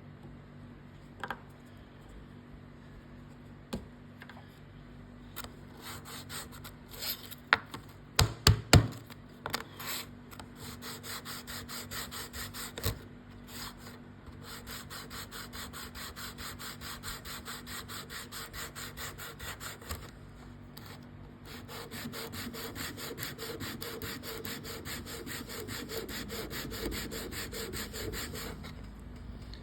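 Bone guitar nut rubbed back and forth on sandpaper in quick, even strokes, in three runs of several seconds each. A few sharp knocks come before the first run.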